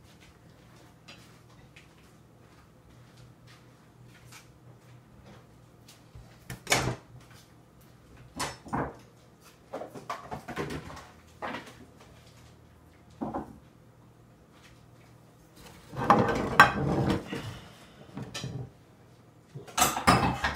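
Kitchen handling noises: scattered knocks and clinks of dishes, pots and utensils, with a longer burst of clattering about two-thirds of the way through and another near the end, over a faint low hum.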